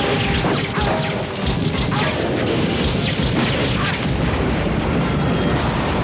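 Action-film soundtrack of explosions: a continuous loud roar packed with bangs and crashes, with music underneath.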